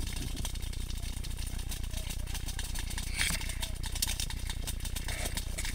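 Paintball markers firing in a fast, steady run of short pops and clicks.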